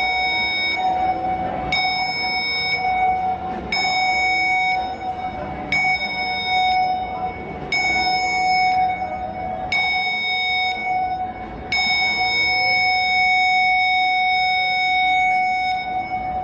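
Cruise ship's general emergency alarm sounding for the muster drill. High electronic tones about a second long come every two seconds, then one long tone of about four seconds near the end: the seven-short-one-long signal that calls passengers to their muster stations. A steady lower tone runs beneath it.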